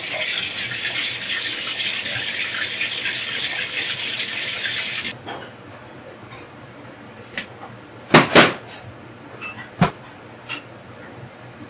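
A tap running water for about five seconds, then shut off abruptly. A few sharp knocks follow, the loudest a double knock about eight seconds in and another near ten seconds in.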